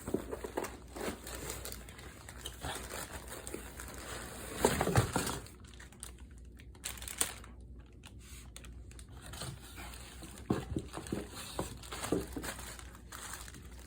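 Plastic and cardboard packaging crinkling and rustling while parts are pulled out of the box, with scattered knocks and a louder burst of handling noise about five seconds in.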